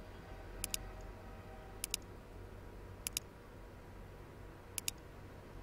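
Computer mouse clicking four times, a second or more apart, each click a quick pair of sharp ticks, over a faint low steady hum.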